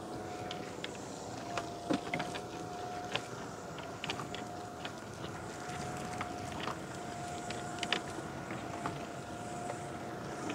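Steady hum of a small boat's motor, with scattered sharp clicks and knocks as a fishing net is hauled in by hand, the loudest about two seconds in and near eight seconds.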